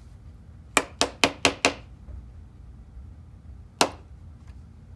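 Five quick, sharp clicks or taps in a row, then a single one about two seconds later.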